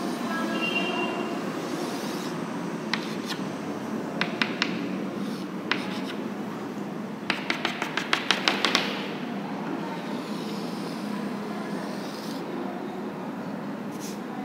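Chalk on a blackboard while drawing: scattered taps and scratches, a brief squeak about a second in, and a quick run of about a dozen taps around the middle as short strokes are dashed off, over a steady background hiss.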